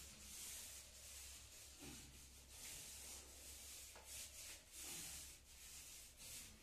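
A paint roller loaded with paint rolled up and down a wall: faint, repeated swishing strokes, roughly one a second, over a steady low hum.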